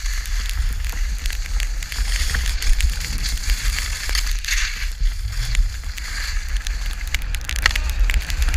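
Skis hissing and scraping over snow on a downhill run, with many small crackling clicks from the edges. A constant low wind rumble sits on the camera microphone.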